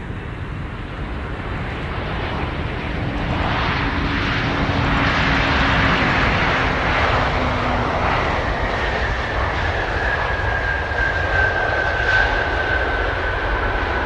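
Jet engines of an Antonov An-225 Mriya, six turbofans, passing close and low. The noise swells to its loudest midway, then settles into a steady high whine that falls slightly in pitch.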